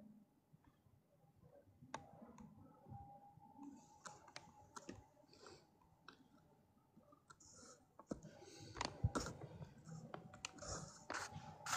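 Faint scattered clicks and soft rustles, growing busier from about eight seconds in, with a faint steady hum underneath.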